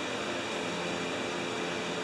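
Steady, even hum and hiss of workshop room tone, with no tool strikes or clicks standing out.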